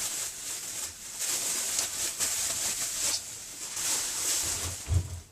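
Plastic wrapping rustling and crinkling as it is pulled off a new air compressor, in uneven stretches, with a dull thump about five seconds in.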